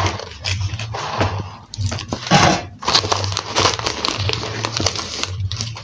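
Crinkling and rustling handling noise with scattered clicks, and one brief louder sound about two seconds in.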